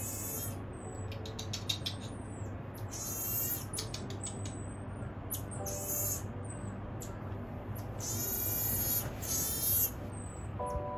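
Baby common marmoset giving a series of high-pitched, shrill calls, about five in all, each a half second to a second long with a fast flutter, the longest two close together near the end. The calls are its reply to being called by its owner.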